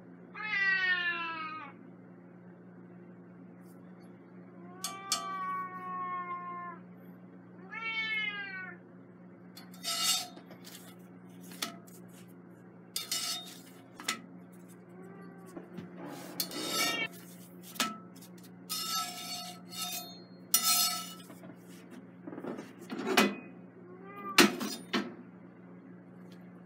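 A cat meows three times in the first nine seconds, the middle call longer and steadier than the others. After that come repeated sharp clicks and clatters of metal against a cast-iron skillet and the gas stove's grate, over a steady low hum.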